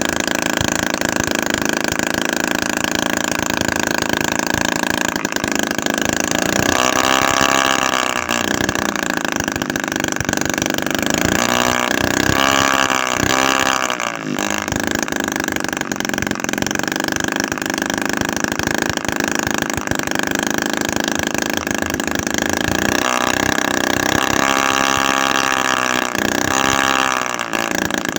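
Homemade 7cc two-stroke engine, built from an old refrigerator compressor with a 25 mm bore and 16 mm stroke, running steadily. Its speed rises and falls several times: about a quarter of the way in, around the middle, and again toward the end.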